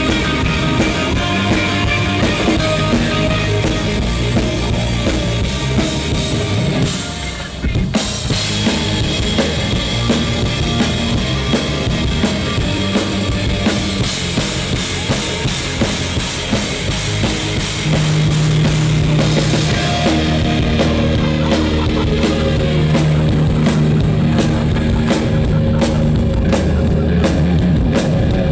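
Live rock band playing an instrumental stretch, led by the drum kit with bass underneath. About seven seconds in the band drops out briefly, then comes back in on a hit.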